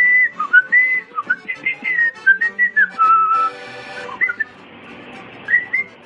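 Male cockatiel whistling a tune: a quick run of clear, sliding notes that stops about three and a half seconds in, then two short whistled phrases, one just after four seconds and one near the end.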